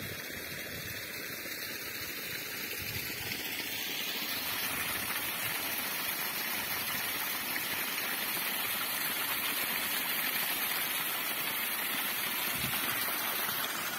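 Water gushing from a bent metal pump outlet pipe and splashing onto the ground, a steady rush that grows louder about four seconds in.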